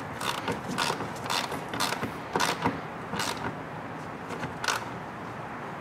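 Small ratchet with an 8 mm socket clicking in short back-and-forth strokes as it tightens a hose clamp on the intake tube. The clicks come in quick runs for about three seconds, then thin out to a few.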